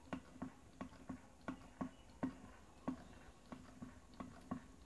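Small low-temperature-difference Stirling engine running on ice, its mechanism clicking lightly and evenly about three times a second as the flywheel turns.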